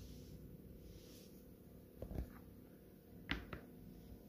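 Light handling knocks on a tabletop as the broken chocolate bar halves are set down: two soft knocks about two seconds in, then two sharper taps a little after three seconds, over a faint steady hum.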